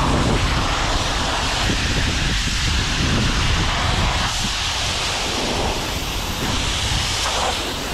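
Self-service car wash high-pressure wand spraying water onto a car: a loud, steady hiss and rush of spray over a low rumble.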